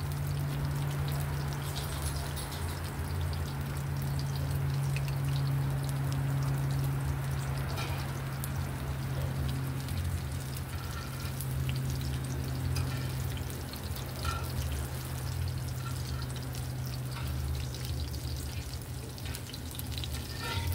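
Shrimp fritters frying in oil in a cast-iron pan: a steady sizzle with fine crackles, over a steady low hum.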